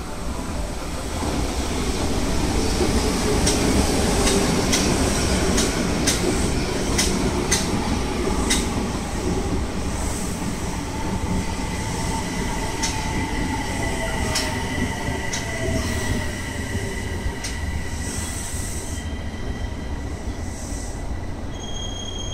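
Electric subway train on open track running past close by. Its rumble swells as it nears, with a string of sharp clicks from the wheels over rail joints. Later a high steady wheel squeal sounds alongside tones that fall in pitch as the cars go by.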